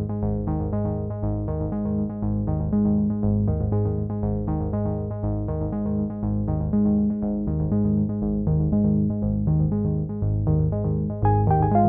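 Background electronic music: synthesizer and keyboard notes over a steady pulsing beat, with a brighter higher part coming in near the end.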